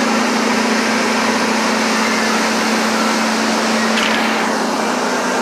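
Boat running at speed: a steady engine drone under the rush of wind and churning wake water.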